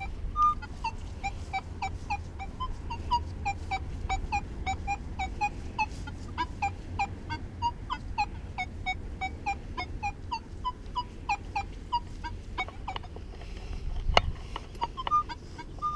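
An animal chirps steadily, rapid short calls about three a second that go on without a break. A few short flat beeps from a metal detector come in about half a second in and again near the end, and there is one sharp knock near the end.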